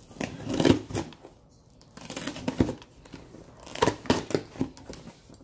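Packaging being opened by hand: irregular crinkling, rustling and tearing of paper and plastic with sharp crackles, loudest about half a second in and again around four seconds in.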